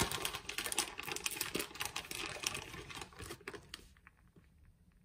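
Rustling and crinkling of a plastic packet of grated mozzarella being handled, thick with small crackles, stopping just before four seconds in; a few faint light ticks follow as the cheese is sprinkled onto the bread.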